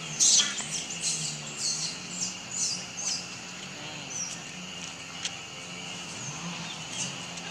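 A quick run of short, high-pitched animal squeaks or chirps, about seven in the first three seconds, the first one the loudest, then a few faint scattered ones. A steady faint high hum lies underneath.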